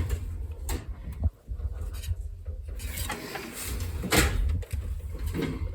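Hand tools knocking and scraping against metal engine parts in a series of scattered clicks and rubs, as a stuck fan and water pump are worked loose.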